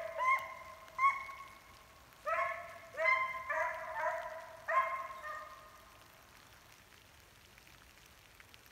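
Hunting dog baying while running a deer: a string of short, steady-pitched bays, clustered between about two and five seconds in, then thinning out and stopping about six seconds in.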